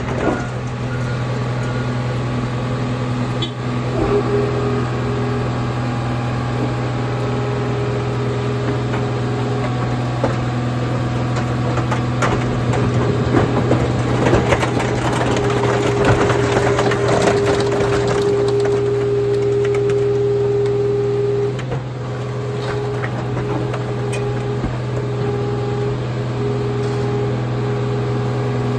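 A car crusher's hydraulic press runs with a steady drone and a whine that comes and goes as its top platen slowly presses down on stacked cars. The cars' metal and glass crackle and crunch as they give way, most densely in the middle stretch.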